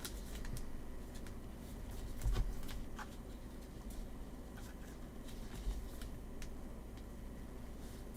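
Faint clicks and light handling noises of baseball trading cards being sorted and flipped through by hand, with a slightly louder bump about two and a half seconds in.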